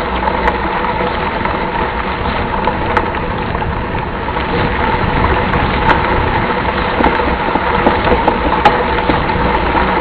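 Mountain bike riding over a rough trail: a steady rumble with many small rattling knocks.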